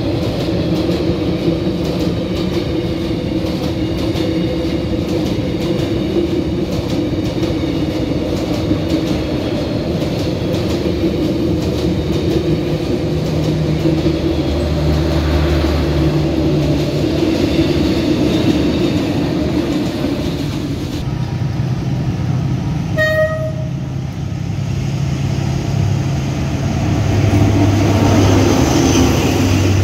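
A train rolling past close by, its wheels clicking over the rail joints under a steady low rumble and drone. About three-quarters of the way through comes one brief horn toot.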